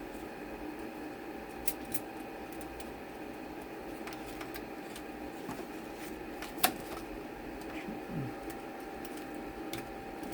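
Scattered light clicks and ticks from hands working on a BMX bike's brake detangler and cable adjusters, with one sharper click about six and a half seconds in, over a steady room hum with a faint whine.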